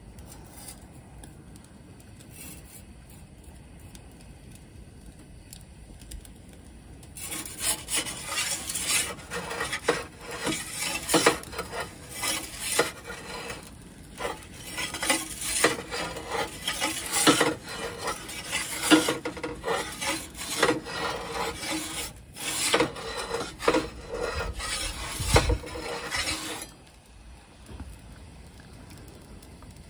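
A metal turning peel scrapes and rasps against the stone baking floor of an Ooni Koda 12 gas pizza oven as the pizza is rotated. It comes in many quick irregular strokes, starting about seven seconds in and stopping a few seconds before the end, with a dull knock just before it stops.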